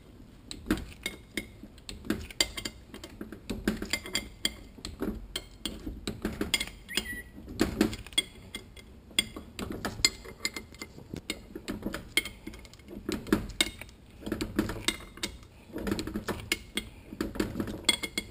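Hand torque wrench tightening the stator-support bolts on a Toyota A340 automatic transmission's front oil pump to 80 inch-pounds: quick, irregular ratchet clicks, with light metallic clinks of the socket and pump housing.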